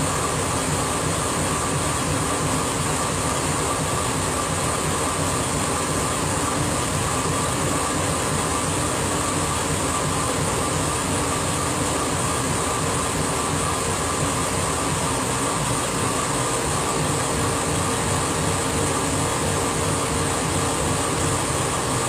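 Laser engraver running partway through a photo-engraving job: a steady drone from its fans and air-assist blowing, with a constant hum tone and hiss under it.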